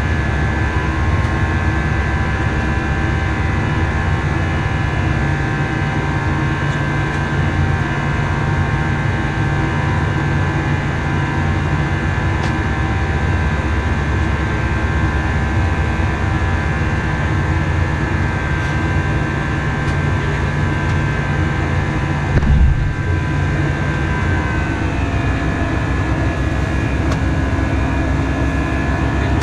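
Cabin noise of an Airbus A319 in its climb after take-off: a steady engine and airflow drone with steady whining tones over a low hum. About two-thirds of the way through there is one brief low thump.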